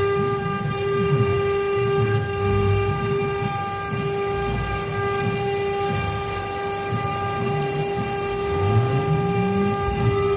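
CNC router's 2.2 kW water-cooled spindle running at its full 400 Hz setting, a steady high whine, while its 3 mm bit cuts 3 mm aluminium composite panel. Underneath, the lower whir of the axis drives rises and falls in pitch as the head moves, with a rising sweep near the end.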